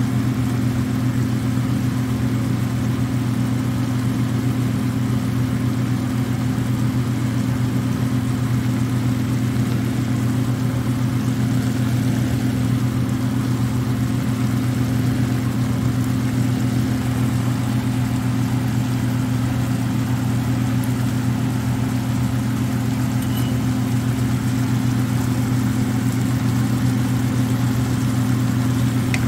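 Steady low hum of a kitchen exhaust fan running.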